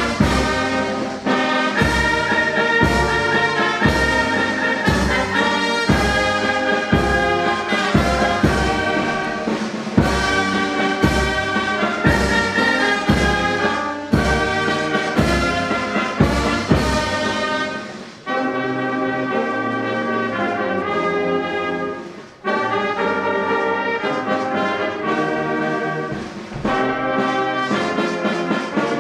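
Brass band music: trumpets and trombones over a steady drum beat, moving into long held chords about two-thirds of the way through.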